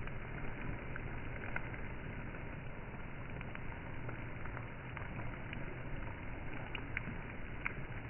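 Rain and strong wind during a storm: a steady rush with a low rumble, and scattered sharp ticks of drops landing.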